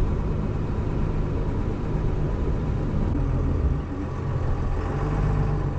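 Cummins 12-valve 6BT diesel of a 1973 Chevy C30 ramp truck running under way, heard from inside the cab as a steady low drone with road noise. It eases off briefly about four seconds in and then picks up again.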